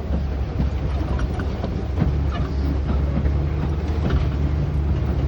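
Safari tour truck driving along: a steady low engine and road rumble with irregular rattles and knocks from the vehicle.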